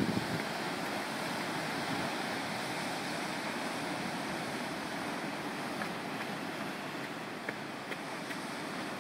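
Steady wash of ocean surf breaking along the beach, mixed with wind noise on the microphone.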